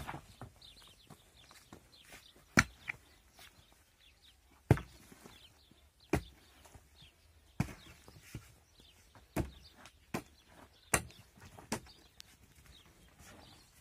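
Pickaxe striking packed earth at the base of a wooden pole, digging it loose: about eight sharp blows, each one to two seconds apart.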